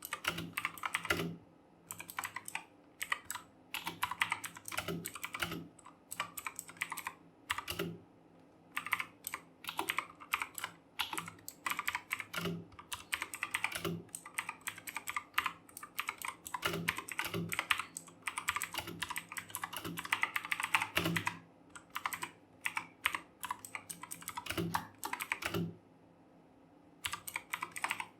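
Fast typing on a Redgear Chameleon mechanical keyboard with clicky Kailh Blue switches: quick runs of sharp key clicks in bursts, with brief pauses between them.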